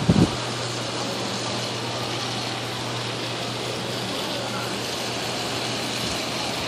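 Steady rushing storm noise from the nor'easter's wind and snow, under a steady low electrical hum from the burning, arcing transformer. A short low thump comes right at the start.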